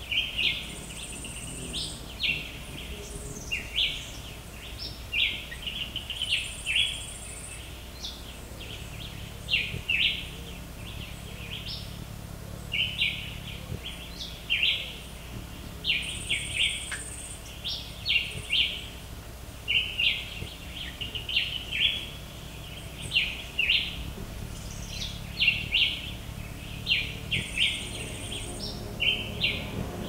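Wild birds chirping: short, sharp calls in quick runs, with a higher buzzy note lasting about a second, four times.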